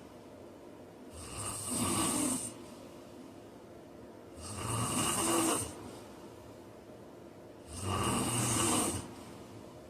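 A man snoring: three snores about three seconds apart, each lasting a little over a second, with quiet gaps between.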